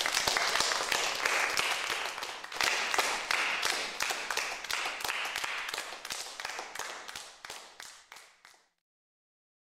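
Audience applauding, many hands clapping together, fading away and stopping about nine seconds in.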